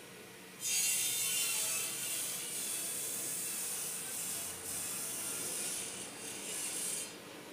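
A brush scrubbing thick gelcoat over the carved surface of a mould pattern, a high scratchy hiss. It starts about half a second in, breaks off briefly twice, and stops shortly before the end.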